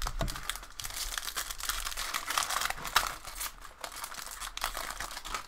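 Shiny foil wrapper of a hockey trading-card pack crinkling and tearing as it is peeled open by hand, a steady run of small crackles. The wrapper splits apart very easily.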